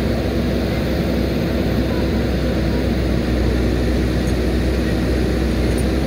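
Diesel engine of a JCB backhoe loader running steadily, a constant low drone.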